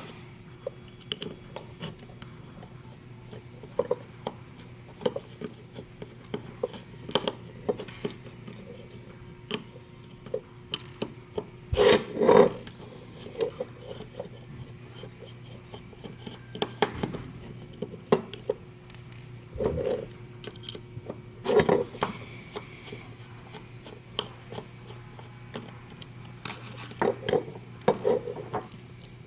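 Clicks, taps and scraping of tools and small plastic and metal parts handled during a security camera teardown, as a circuit board is worked out of its housing. The loudest clatter comes about twelve seconds in and again around twenty-two seconds, over a faint steady hum.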